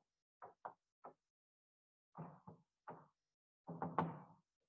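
Chalk writing on a blackboard: a string of short, separate taps and scrapes as the words are chalked up, the sharpest tap about four seconds in.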